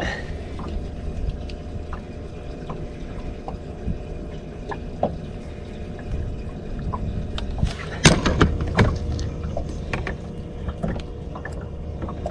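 Small clicks and knocks of pliers working a hook out of a fish's mouth, with a cluster of sharper knocks about eight seconds in, over a steady low rumble.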